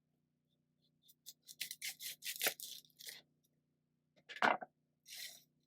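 Kitchen food-preparation sounds, most likely an onion being handled and cut: a quick run of crisp scraping and crackling strokes, then one louder knock about four and a half seconds in, and a short rustle near the end.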